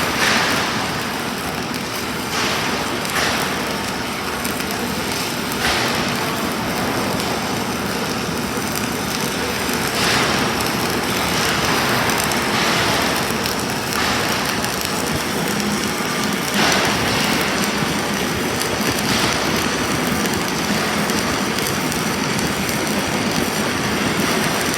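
Self-shielded flux-cored welding arc burning steadily through a long weld pass.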